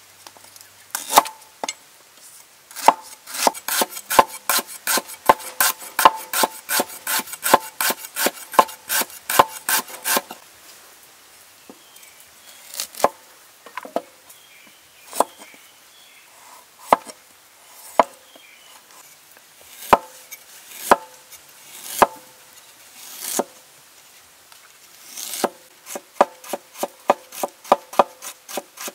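Cleaver chopping and slicing on a wooden board. A quick run of knife strokes, about three or four a second, lasts for about ten seconds. Single strokes then follow a second or two apart, and the strokes quicken again near the end.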